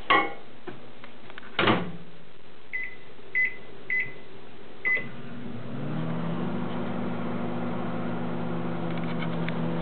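Microwave oven being set and started: a thump, four short keypad beeps, then from about five seconds in the oven runs with a steady hum, cooking the brownie batter on high.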